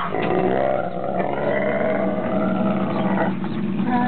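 Wolves vocalizing in a continuous run of pitched calls that waver and glide up and down in pitch.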